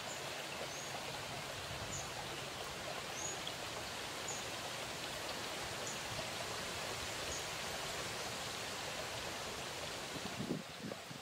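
Steady rushing of a running stream, with faint short high chirps about every second or so. Near the end the rushing dips and a couple of soft low knocks sound.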